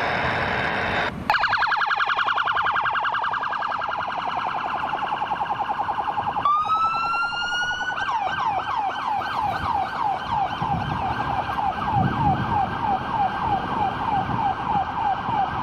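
Police car siren cycling through its tones: a very fast warble, then a rising wail about six seconds in, then a yelp sweeping about four times a second.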